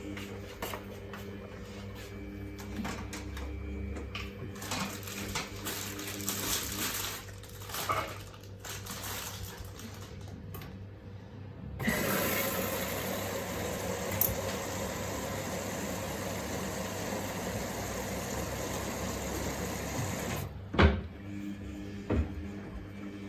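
Samsung WF1700WRW front-loading washing machine mid-cycle: a steady motor hum with small knocks, then about twelve seconds in water starts rushing into the machine through the inlet valve for about eight seconds and cuts off suddenly, followed by a couple of knocks.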